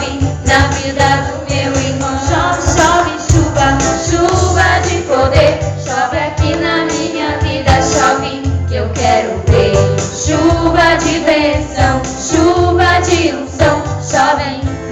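Voices singing a Portuguese worship song with band accompaniment: a steady bass line and a regular beat with jingling percussion.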